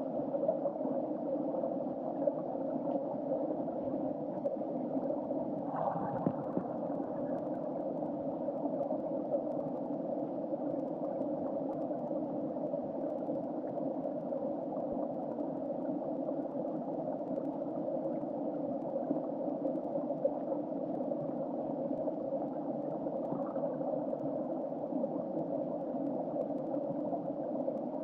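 Creek water flowing and gurgling, heard through an underwater camera's waterproof housing as a steady, muffled rushing hum. There is a brief louder swell about six seconds in.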